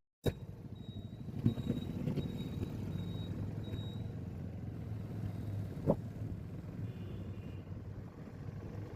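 Motor vehicle engines running low and steady in road traffic, with a faint high-pitched beep repeating about every half second for the first few seconds, and a single short click about six seconds in.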